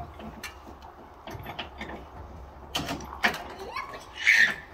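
Irregular sharp clicks and knocks from working the hand hoist rigged to a Douglas fir log on a truck bed, over a low steady hum. A short higher-pitched sound comes near the end.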